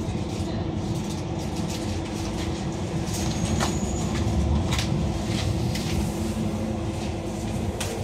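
Docklands Light Railway train running along the track, heard from inside the carriage: a steady rumble with a constant hum, broken by several sharp clicks from the wheels over the track.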